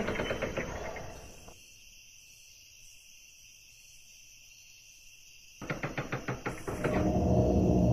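Film score fading away to a very faint hush, then about four seconds later a fast pulsing rhythm coming in and swelling louder.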